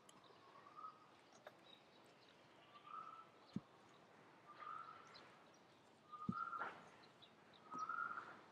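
Faint, repeated animal call: a short, slightly rising note about five times, roughly every one and a half to two seconds. Two soft low thuds fall between the calls.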